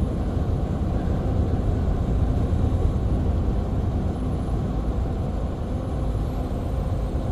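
Steady engine and road noise heard from inside a semi-truck cab cruising on the interstate.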